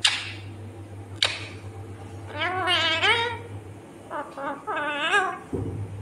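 Indian ringneck parrot giving two wavering, warbling calls, the first about two seconds in and the second about four seconds in. Two short sharp sounds come before them, one at the start and one about a second in.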